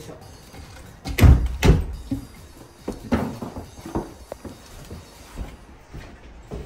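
Knocks and thuds of wood: two loud ones about a second in, then a few lighter ones.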